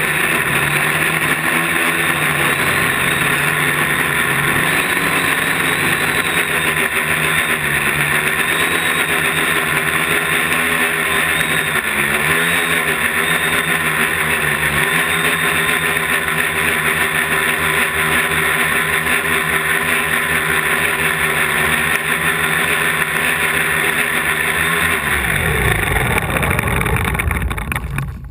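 Quadcopter's electric motors and propellers whining steadily in flight, the pitch wavering briefly now and then. In the last few seconds the pitch falls as the motors spin down for landing, and the sound cuts off at the end.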